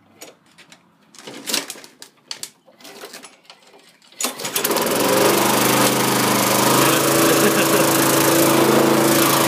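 A few scattered knocks and clatter, then about four seconds in a petrol lawn mower engine catches and runs steadily.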